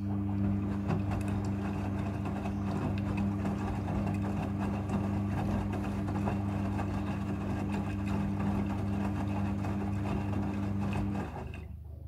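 Front-loading washing machine turning its drum while soaking a load of clothes: a steady motor hum with water sloshing and wet clothes tumbling, which stops about a second before the end.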